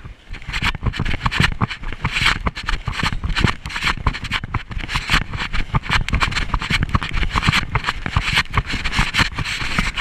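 Footsteps and leafy branches brushing and scraping against the camera while walking through dense, wet undergrowth: a dense, irregular rustling over a low rumble on the microphone.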